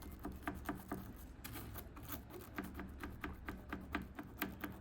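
Stiff brush scrubbing a CB radio knob: a quick, irregular run of short scratchy strokes, several a second.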